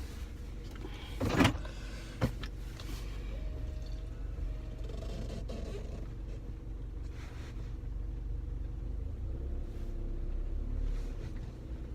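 Car's engine idling, heard as a steady low rumble from inside the cabin. A short, loud, noisy burst comes about a second in, then a sharp click.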